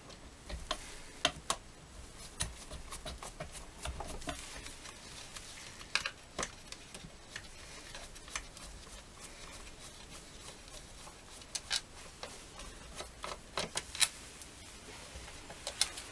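Irregular small clicks and light scrapes of a screwdriver working the cover screws out of an old Pioneer P40 chainsaw's housing.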